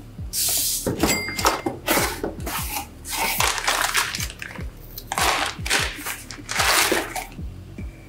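Crinkly anti-static plastic bag and cardboard box handled in short rustling bursts as a motherboard is unpacked, over background music with a steady low beat.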